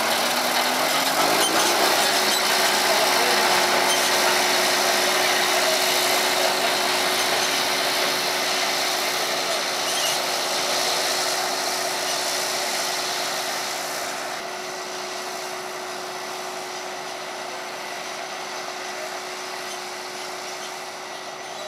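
Lancer 7500 dry fertilizer spreader running, its spinner discs flinging granulated urea with a loud, steady hiss over a mechanical whine. The whine rises in pitch over the first two seconds, then holds. The sound drops somewhat about two-thirds of the way through.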